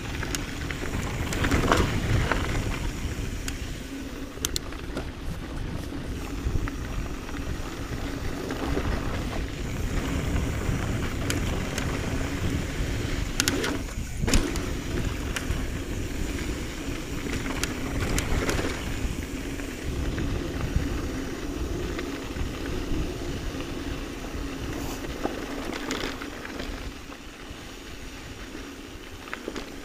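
Mountain bike riding down a dirt and rock trail: tyres rolling over the dirt, wind buffeting the microphone, and scattered knocks and clicks from the bike as it hits bumps.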